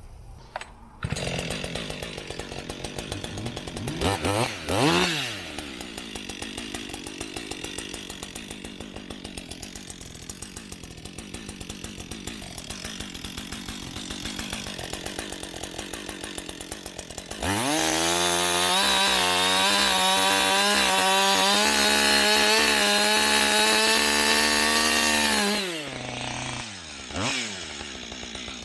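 Two-stroke chainsaw idling with a fast, even putter and a quick rev a few seconds in, then opened up to full throttle for about eight seconds before dropping back to idle, with one more short rev near the end.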